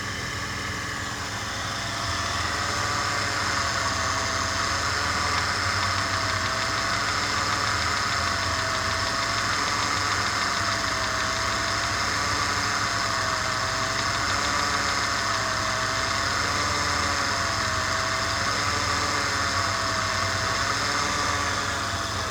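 Engine running with a connecting-rod knock, from a rod whose cap has come loose.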